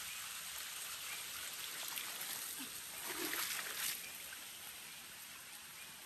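Water splashing and trickling as a plastic basin is dipped into a shallow river and lifted out full, loudest about three to four seconds in.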